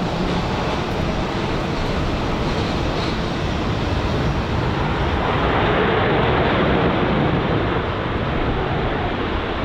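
Jet noise from a four-engine Airbus A340 airliner on landing, a steady rush that swells to its loudest about two-thirds of the way through and then eases slightly.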